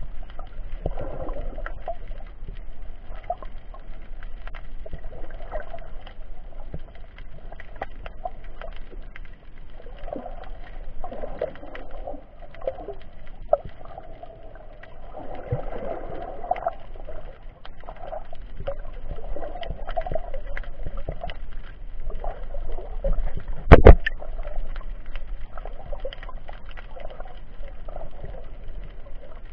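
Muffled underwater water noise heard through an action camera's waterproof case, swelling and fading every few seconds, with scattered small clicks and one loud knock about 24 seconds in.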